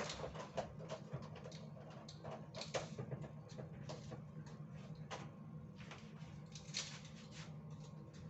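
Scattered light clicks and knocks, irregular and a few a second, over a steady low hum.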